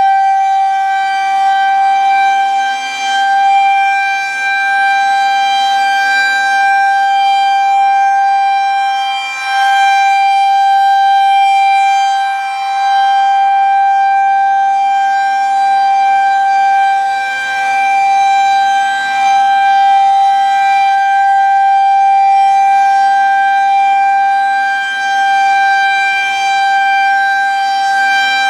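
Federal Signal 2001-130 rotating electromechanical warning siren sounding the steady Alert signal: one held pitch with no rise or fall. Its loudness dips briefly every few seconds as the rotating horn turns away and back.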